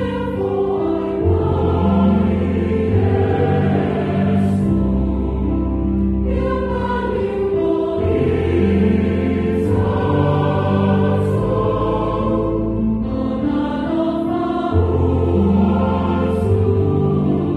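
A choir singing a Samoan hymn of thanksgiving in long held chords, with short breaks between phrases.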